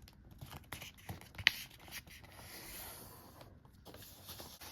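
Construction paper being folded by hand and creased, rustling and rubbing as fingers press along the fold, with a sharp crackle about a second and a half in.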